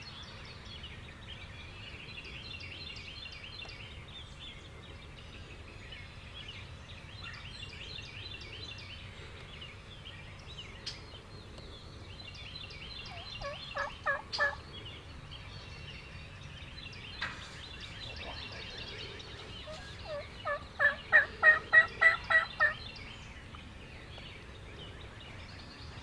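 Wild turkeys calling in two series of short, quick notes: a brief run of about five notes a little past halfway, then a longer, louder run of about ten near the end.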